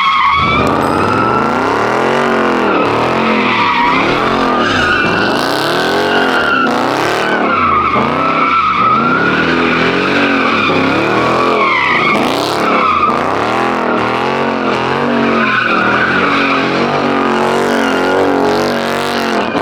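A car engine revving up and falling back over and over, about every second and a half, while the tyres screech continuously as the car spins donuts or does a burnout.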